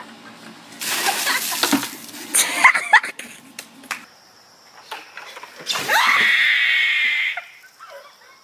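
A bucket of ice water splashing over a person, with shrieks. A few seconds later a second person is doused and lets out one long, loud scream of about a second and a half.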